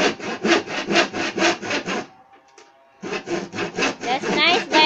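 Hand saw cutting down through a wooden board in quick, regular back-and-forth strokes, about four or five a second. The sawing stops for about a second midway, then starts again.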